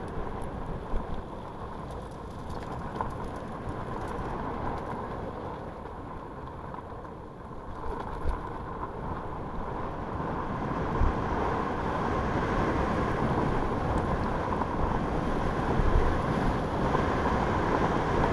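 Wind rushing over an action camera's microphone and knobby tyres rolling over a dirt trail on a fast mountain-bike descent, with a few knocks from bumps. The rush grows steadily louder as the speed climbs.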